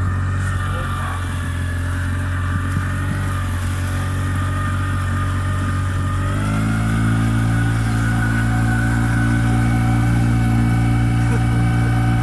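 Hangkai 6 hp outboard motor running steadily under way; about six seconds in, its revs rise and hold at a higher speed.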